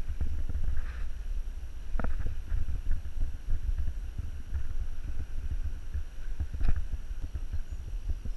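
Low, irregular rumbling thumps from wind and body movement on a body-worn camera's microphone as the angler moves along the grassy bank to his rod, with a sharper knock about two seconds in and another near the end.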